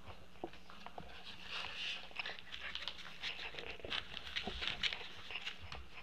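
Puppies scrambling about in wood-shavings bedding: irregular scratching and rustling with small clicks of paws and claws.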